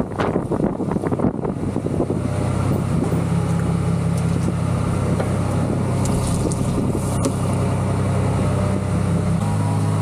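Small drum mixer running while barley seed is dressed with fungicide: rattling for the first couple of seconds, then a steady low hum with the seed tumbling in the drum.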